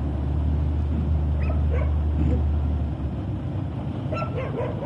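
A machine engine running with a low steady hum that eases off about three seconds in, while a dog yips and barks a few times over it.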